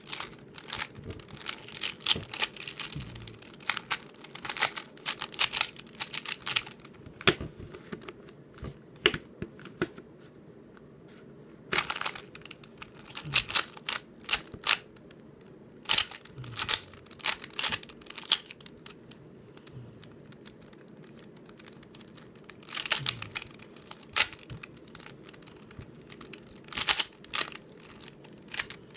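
YJ Sulong 3x3 plastic speedcube being turned rapidly by hand, its layers clicking and clacking in fast bursts of turns separated by short pauses.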